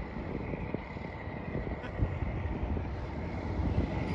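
Uneven low rumble of wind buffeting the microphone out on open water, with a faint steady high whine.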